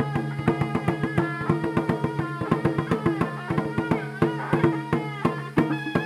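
Live Iranian folk music: a reedy wind instrument plays a wavering melody over a steady low drone, with quick, irregular percussive strokes throughout.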